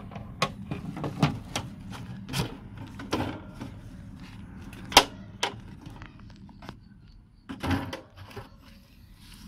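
Handling noise of plastic: knocks, clicks and scrapes as a blue PVC pipe is pushed into the neck of a white plastic jerrycan and the can is shifted on the ground, with a sharp click about five seconds in and a heavier thump near the end.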